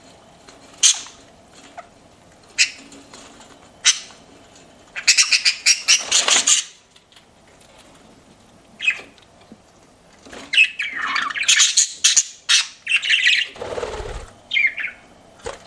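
Pet budgerigars chirping and squawking: single sharp calls at first, then two runs of rapid, busy chatter, with a low thump about two seconds before the end.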